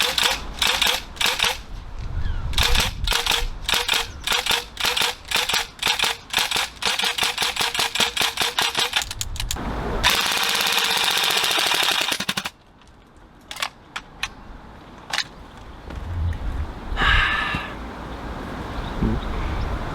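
Northeast Airsoft MP2A1 (UZI) gas blowback airsoft SMG firing, the bolt cycling with sharp cracks in single shots and short bursts, then a faster continuous burst around seven to nine seconds in. A steady hiss follows for about two seconds, then a few isolated clicks.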